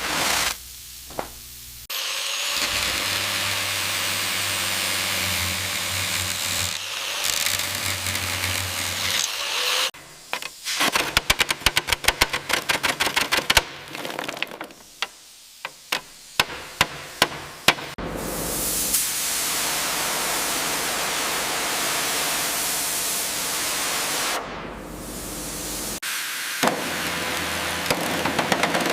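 Rust-removal work on a steel locomotive: a pressure washer running, its steady spray hiss over a low motor hum, broken in the middle by several seconds of rapid sharp metallic taps, then a bright steady spray hiss again.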